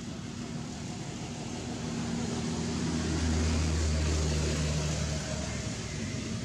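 A low engine hum that swells over a few seconds and then fades, as of a motor vehicle passing by.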